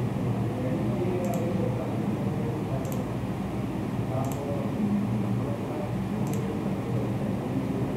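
Four short computer mouse clicks a second or two apart, over a steady low hum of room noise.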